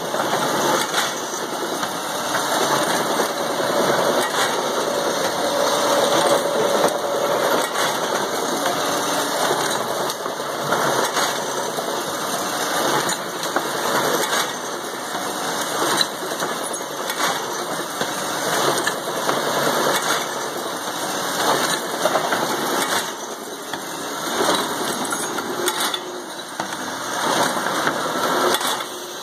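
Eppler tri-spindle paper core cutter running automatically, a steady machine noise with frequent short clacks and clatter as paper tubes are cut into cores.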